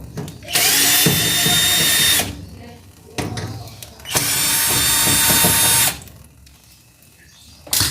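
Electric drill-driver running in two bursts of nearly two seconds each, with a steady whine, backing out the screws of a washing machine's rear panel.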